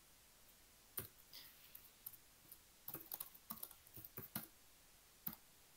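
Faint computer-keyboard typing: scattered single keystrokes, then two quick runs of clicks in the middle and one last keystroke near the end.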